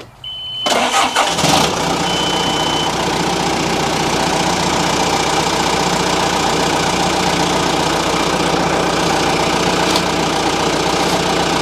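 John Deere 310G backhoe's diesel engine cranking and catching under a second into cranking, then settling into a steady idle, starting after its fuel pump was refitted and primed. A short high beep sounds twice near the start.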